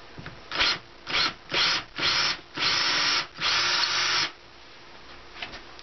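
Cordless drill boring a hole through a solar panel's frame, run in six bursts on the trigger that grow longer from a short blip to about a second.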